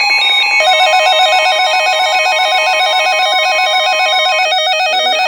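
Several emergency alert receivers sounding their alarm tones at once: steady alert tones, joined about half a second in by a fast warbling alarm tone that carries on, while one steady tone stops about four and a half seconds in.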